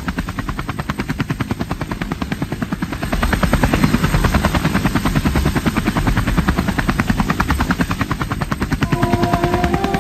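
Helicopter rotor chopping, a rapid even pulse that steps up louder about three seconds in. Near the end a melody of held tones comes in over it.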